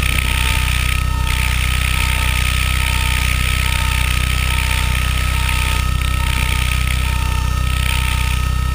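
Steady mechanical motor drone, running without change, with an electronic beep repeating about twice a second.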